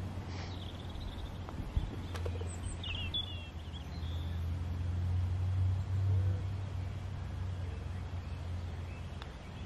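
Open-air ambience: a steady low rumble that swells in the middle, with a few short high bird chirps near the start and about three seconds in.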